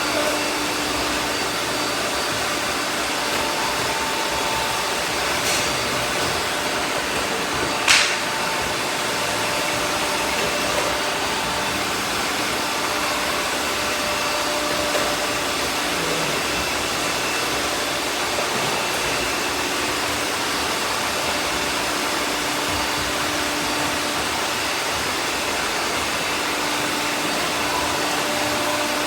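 Several robot vacuums running together: a steady whir of suction and brush motors with a faint hum, and a single sharp click about eight seconds in.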